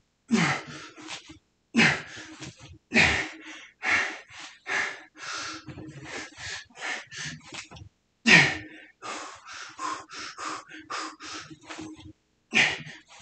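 A man's heavy breathing and gasps from the exertion of a set of squats, with a loud breath about once a second.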